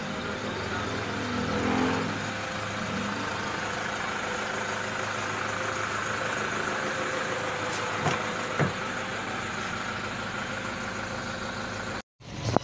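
Vehicle engine idling steadily, with two sharp clicks about eight seconds in.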